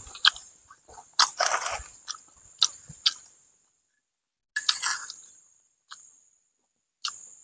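Short crunchy knocks and scrapes as food is served by hand: a plastic tub of steamed rice shaken and knocked out onto a banana leaf, then a metal spoon scraping sambal terasi in a stone mortar. About ten separate clicks and knocks over the first three seconds, one longer scrape a little before five seconds, then two faint clicks.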